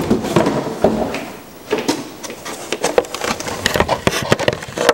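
Rustling and clicking of packaging and handling noise as a new fuel injector assembly is lifted out of its box, with many small irregular ticks and knocks.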